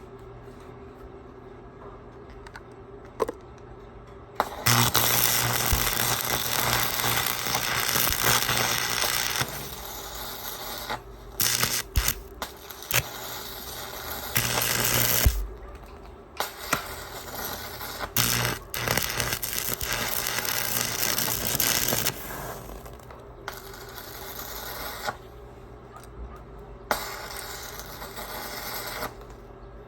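Electric arc welding on steel purlins: crackling in several runs of a few seconds each, stopping briefly between runs.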